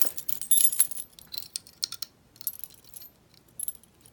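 Steel warded picks clinking and rattling as they are tried in a 1950s Master Lock warded padlock, with irregular light metallic ticks and jingles and short pauses between them.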